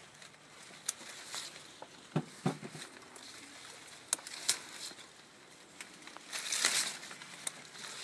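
Harvest snips clicking shut several times as grape clusters are cut from the vine, amid rustling of vine leaves and stems; a longer, louder rustle comes near the end.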